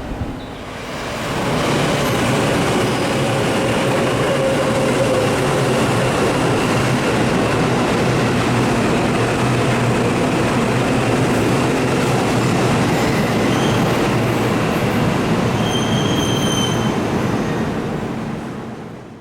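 Seibu Shinjuku Line electric commuter train running at the station platform, a steady loud rumble of wheels on rail that builds up about a second in and fades away near the end. A brief high wheel squeal rings out about sixteen seconds in.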